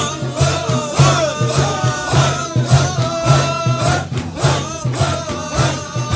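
Naqshbandi Sufi zikr: a group of voices chanting together, a low repeated chant pulsing about twice a second under higher voices that sing gliding lines over it.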